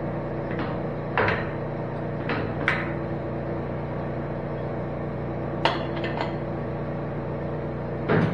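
Giddings & Lewis Model 25 horizontal boring mill running with a steady hum, while its controls are worked by hand, giving several sharp metal clanks scattered through.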